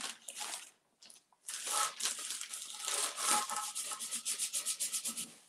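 Hands rubbing decoupage paper down onto a flowerpot: a few short scrapes, then from about a second and a half in a fast, continuous run of papery rubbing strokes.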